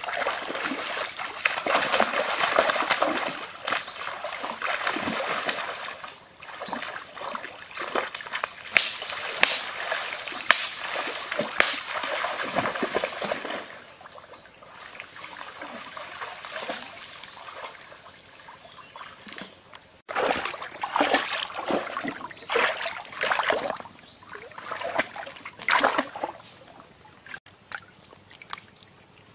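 Shallow river water splashing and sloshing in irregular bursts, busy for the first dozen seconds, quieter for a while, then splashing again until near the end.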